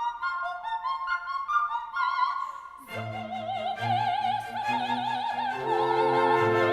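Classical background music. A light melody of short stepping notes plays at first; about three seconds in, a fuller passage enters with a wavering vibrato lead line over sustained lower parts and a bass.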